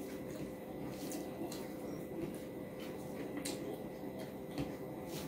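Close-miked eating with the hands: fingers mixing rice and curry on a plate, with chewing and a scatter of short wet mouth clicks at irregular intervals.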